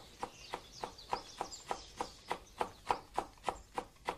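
Light, even tapping about three times a second, with faint high chirps in the first half.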